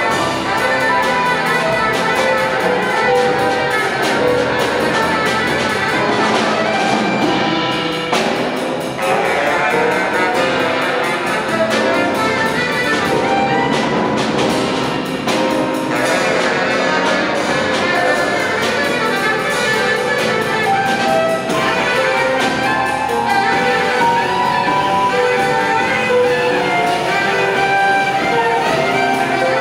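Jazz quartet playing live: saxophone over piano, bass and drums, the music dense and continuous.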